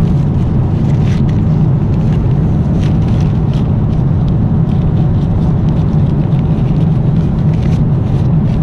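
Steady low drone of an airliner cabin in flight, with faint intermittent rustling as a fabric travel pillow is handled.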